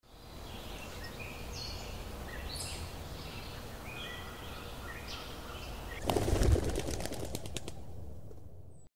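Birds chirping in short calls over a low, steady background noise. About six seconds in, a flock takes off with a sudden burst of wing flapping that fades away.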